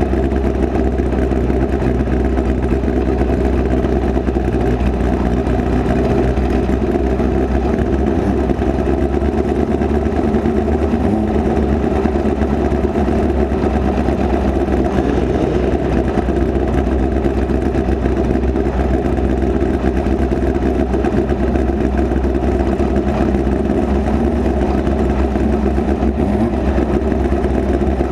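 Midget race car engine heard onboard from the cockpit, running steadily at an even pace without big revs.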